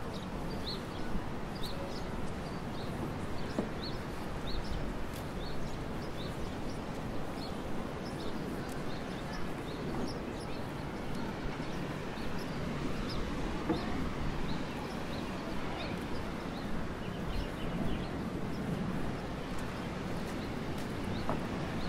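Small birds chirping in quick, short calls, most often in the first half, over a steady wash of wind and open-air background noise.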